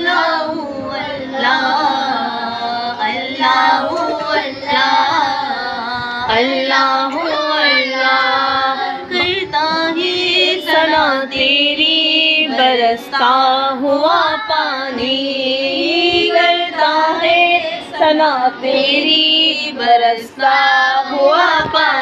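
Children singing together, a continuous melodic chant with rising and falling pitch and no spoken words.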